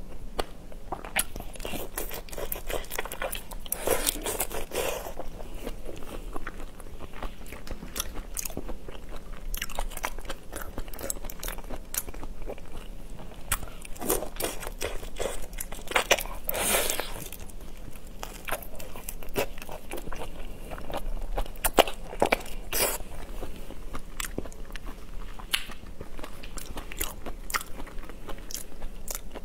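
A person biting and chewing whole shell-on shrimp: irregular crackly crunches of shell and chewing, close to a lapel microphone, with a few louder crunches scattered through.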